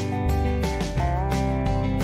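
Background music: a country-style tune with strummed guitar over a steady bass, with one note bent upward about a second in.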